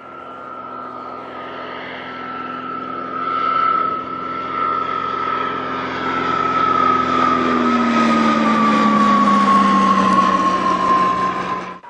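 Propeller aircraft flying past, growing louder, its engine and propeller tone sliding down in pitch as it goes by; the sound cuts off suddenly near the end.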